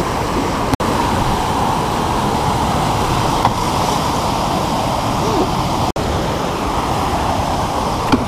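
Steady, loud rush of water pouring over a spillway and churning through the shallow creek below. The sound cuts out for an instant twice, about a second in and again near six seconds.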